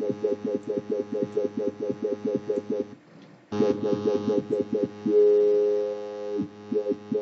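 Dubstep wobble bass from the Toxic Biohazard software synth, pulsing about six times a second as its LFO sweeps the filter. It drops out briefly a few seconds in, then a steady held note without the wobble sounds for just over a second before the pulsing returns.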